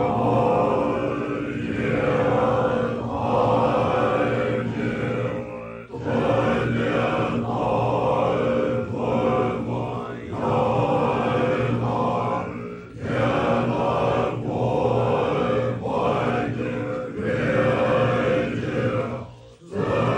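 Low chanting voices in long held phrases of a few seconds each, with brief breaks between them, from the soundtrack of a stage dance performance.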